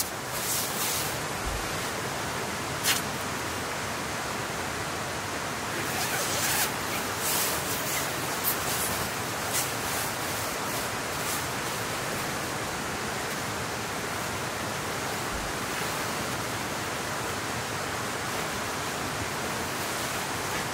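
Steady hiss of rain, with scattered light ticks and taps in the first half.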